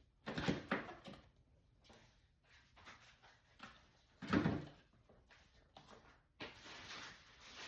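Food containers and items being handled in a refrigerator: knocks and clatters as things are set down and moved about on the shelves, loudest about half a second in and again a little past four seconds.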